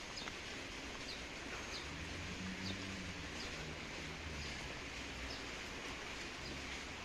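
Steady rain falling on a paved square, an even hiss with scattered short high ticks. A faint low hum comes and goes in the middle.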